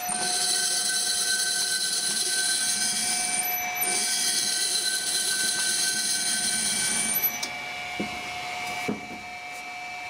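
Simpson washing-machine motor, wound three-phase, running off a variable frequency drive with a steady high-pitched electrical whine made of several tones; it runs smoothly, as a working motor should. The high whine cuts out about seven seconds in, followed by two light clicks.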